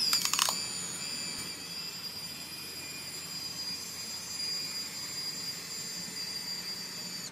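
Fuji Cardia Mini Elite's film-advance motor whirring steadily as it prewinds the whole roll out of the canister onto the take-up spool, after a quick run of clicks at the start.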